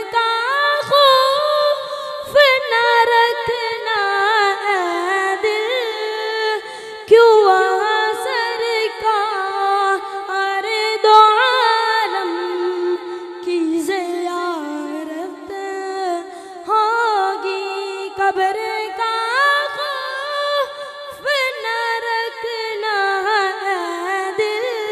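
A boy's solo voice singing a naat, an Urdu devotional poem in praise of the Prophet, without any accompaniment. He sings long held notes that waver and bend in pitch.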